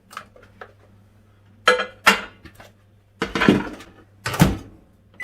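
A plate of food set into a microwave oven and the door shut: several sharp clunks and clatters, about four in all, spread through the few seconds.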